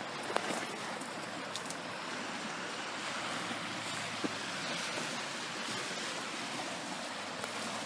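Steady rushing of a fast-flowing river, with a few faint light clicks over it.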